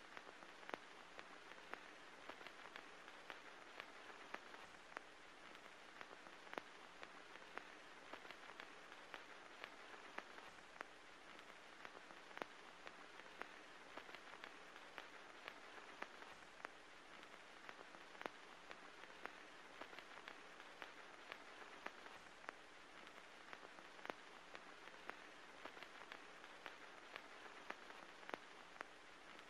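Near silence with faint crackling surface noise: a steady hiss and low hum, dotted with small irregular clicks and pops.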